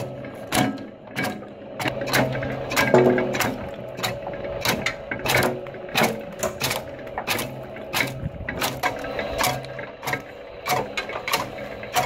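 An old rusty flywheel-driven wood chipper with toothed feed rollers, chopping sticks into chips: a steady running hum with sharp clacks about two to three times a second at an uneven pace.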